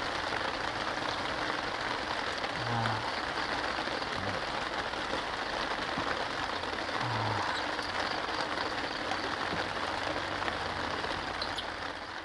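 Steady rain falling on a plastic tarp shelter.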